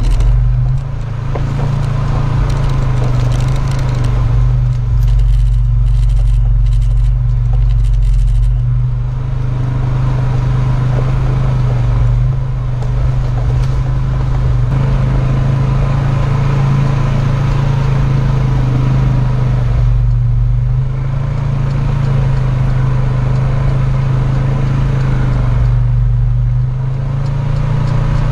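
A vehicle driving along, its engine giving a steady low drone under a constant rumble of road noise.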